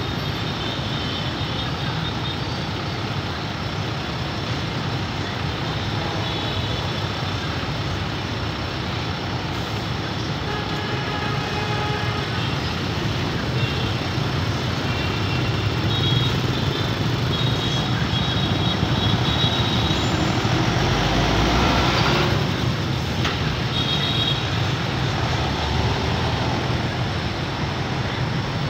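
Steady urban road traffic noise: motorbike and car engines idling and passing, with short high tones coming and going. A louder vehicle passes about three quarters of the way through.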